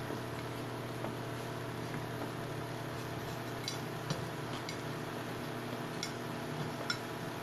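A few faint, short clicks and taps of someone eating rice by hand from a plate, over a steady low hum.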